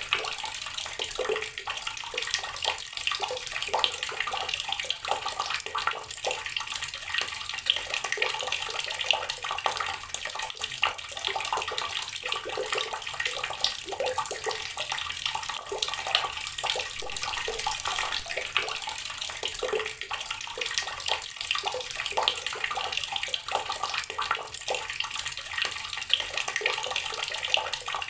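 Water pouring from a tap onto rocks: a steady running stream, full of small, constant splashes.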